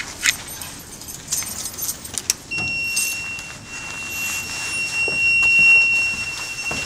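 Apartment-block entrance intercom: several sharp clicks of the keypad being worked, then, about two and a half seconds in, a steady high electronic beep starts and keeps sounding as the entrance door is pulled open, the signal that the door lock is released.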